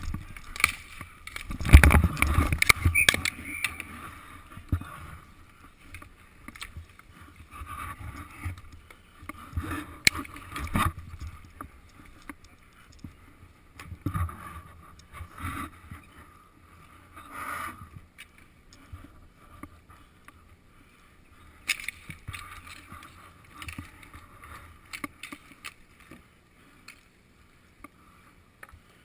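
Inline hockey play on a concrete rink heard from a goalie's helmet camera: skate wheels rolling and scraping, with sharp clacks of sticks and puck. The loudest knocks and rumble come about two seconds in, with further clacks around ten seconds in and now and then after.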